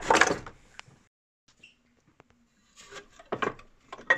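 Gas boiler parts being worked free by hand, the plastic flue collector and metal fittings scraping and knocking against the casing. A loud scrape at the start, a quiet pause of about two seconds, then more rubbing and knocking near the end.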